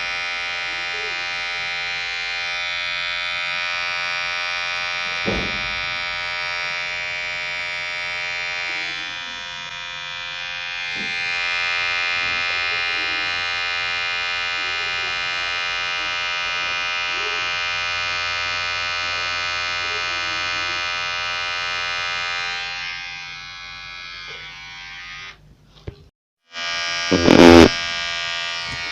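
Electric hair clipper running with a steady vibrating buzz. It fades about three-quarters of the way through and cuts out briefly, then a short, very loud burst comes before the buzz resumes.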